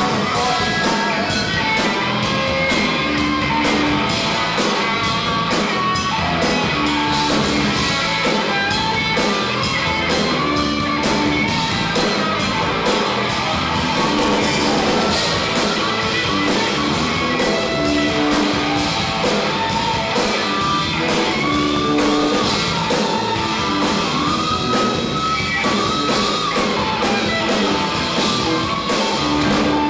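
Rock band playing a song live, with electric guitars and a steady drum beat.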